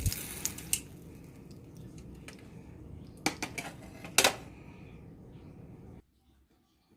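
A utensil scraping and tapping in a frying pan, clearing out burnt bits left from frying, with a few sharp clicks and knocks three to four seconds in. A steady low hum under it cuts off about six seconds in.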